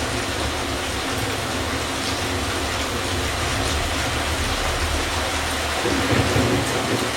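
Rain sound effects played back through a Samsung HW-Q990B soundbar and subwoofer, heard through the room: a steady hiss of rain over a deep low rumble, swelling briefly about six seconds in.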